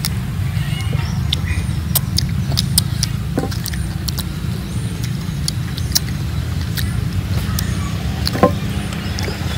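People eating whole raw fruit: scattered sharp clicks and wet mouth sounds of biting and chewing, over a steady low rumble.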